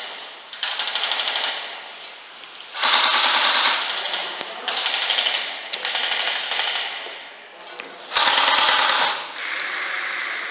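Airsoft guns firing full-auto in repeated bursts, about six bursts of roughly a second each. The loudest are about three seconds in and about eight seconds in.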